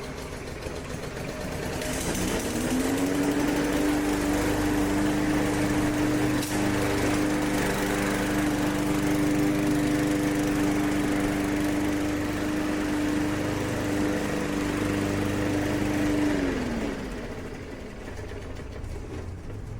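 Push mower's small gas engine running just after being pull-started on the second pull: it picks up speed about two seconds in, runs steadily for about fourteen seconds, then slows and drops away near the end.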